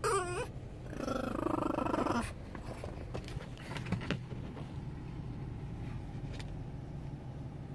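French bulldog crying in a wavering, yodel-like howl: a short falling yelp at the start, then a louder warbling howl lasting a little over a second, with fainter whimpers near the middle. It is the distress of a dog left behind when its owner walks away.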